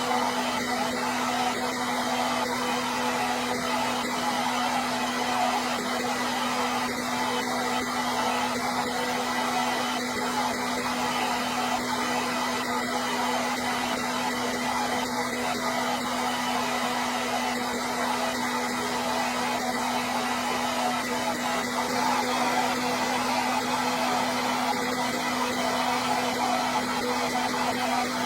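Hair dryer running steadily: an unbroken rush of air with a steady low motor hum beneath it.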